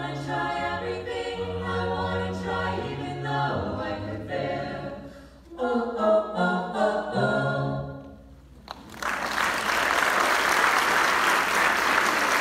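Small a cappella vocal ensemble singing the closing phrases in chords over a low bass part. The singing ends about eight seconds in, and audience applause follows.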